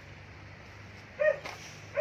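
A dog barking in short, sharp barks: one a little past a second in and another at the very end.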